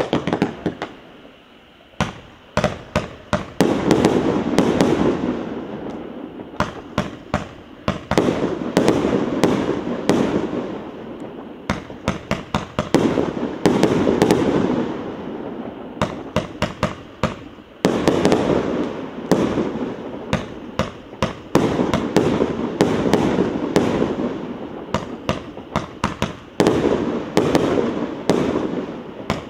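A 100-shot firework battery firing. Its shots and bursts come in rapid volleys of several a second, every few seconds, and a dense rush of crackling noise from the bursting stars fills the gaps.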